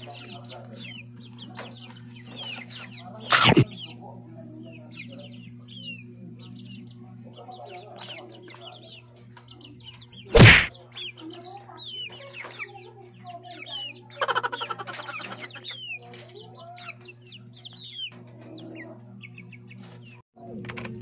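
Caged chickens clucking and peeping in short calls throughout, with two loud, brief sounds about three and a half and ten and a half seconds in, over a steady low hum.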